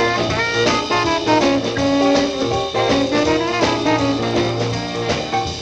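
Instrumental break of a twist-era rock and roll song: a horn plays the lead melody over a steady bass line and a regular drum beat.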